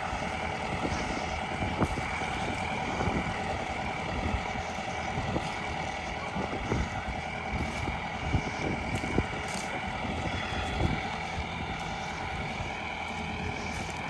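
Leek harvesting machine running steadily, a constant whine over engine noise with scattered knocks and rattles.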